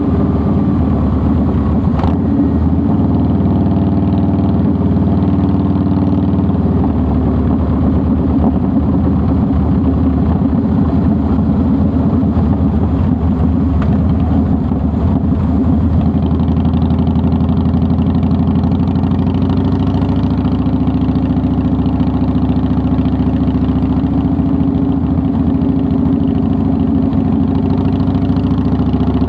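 2009 Harley-Davidson Softail Deluxe's Twin Cam 96B V-twin running steadily, its note shifting a little about halfway through.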